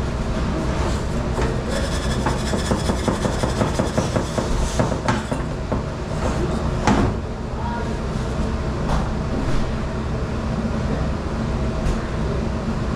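A metal muffin tin being scrubbed cup by cup with a scouring pad, giving rapid scraping and metallic clatter, over the steady hum of commercial dish-room machinery. A sharp knock comes about seven seconds in, with lighter clicks after it.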